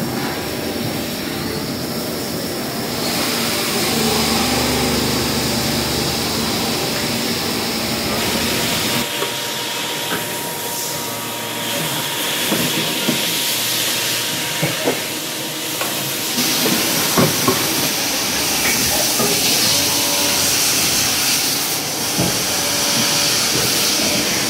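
CNC milling machine running inside its enclosure: flood coolant spraying with a steady hiss over the machine's running hum, with occasional sharp clicks. The sound shifts abruptly a few times.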